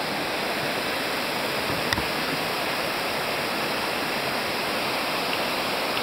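Steady rush of a mountain river's white water cascading over rocks at a waterfall, with one brief knock about two seconds in.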